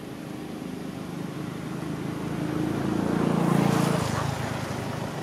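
A motor vehicle passing by: its engine hum grows louder, is loudest about three and a half seconds in, then fades.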